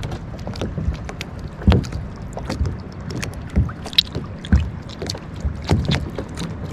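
Irregular knocks and clatter in a kayak, the loudest about two seconds in and again around four and a half seconds, over a steady low rumble.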